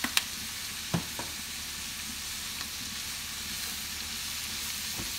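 Chopped cabbage sizzling steadily in a frying pan as it is stirred with a wooden spoon, with a few knocks of the spoon against the pan in the first second and a half.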